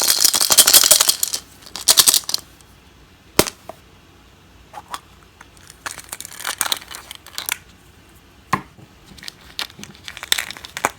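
Plastic wrapping crinkling and tearing as a toy surprise ball is unwrapped, loudest in the first second or so, then quieter handling with a few sharp plastic clicks.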